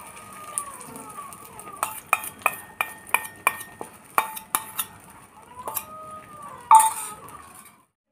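Steel spoon scraping and clinking against a stainless steel bowl: squeaky scrapes, then a run of ringing metallic clinks about three a second, and one loud clang near the end.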